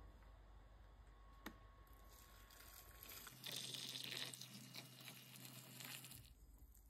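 Water poured in a stream into a stainless steel pot over dried noodle nests, filling it to boil the noodles: a faint splashing hiss that starts about three seconds in and stops about three seconds later. A single light click comes before it.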